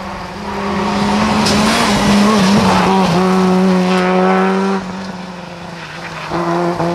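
Rally car engine running hard at high revs as the car passes and drives away, with a short dip in the note about three seconds in. The sound drops around five seconds in as the car goes off, then rises again near the end as it accelerates.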